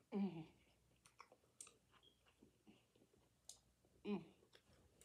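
A person chewing crab meat close to the microphone, with soft wet mouth clicks and lip smacks. There is a short hum of the voice at the start and another about four seconds in.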